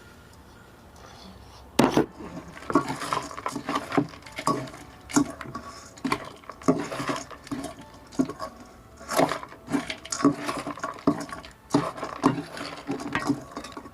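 Puffed rice (bhuja) being put into a bowl and mixed for chatpate: repeated crackly rustling and clicks against the bowl, starting about two seconds in after a quiet start.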